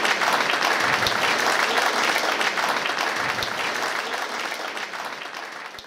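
Audience applauding, a dense steady patter of many hands clapping that fades away near the end.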